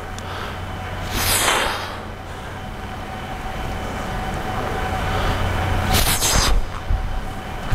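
Two swishing whooshes of an overhead serving swing cutting through the air, about a second in and again about six seconds in, over a steady low mechanical hum.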